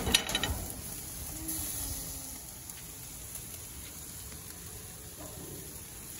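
Meat sizzling on a gas grill, a steady crackling hiss, with a quick cluster of metallic clicks and clinks in the first half-second.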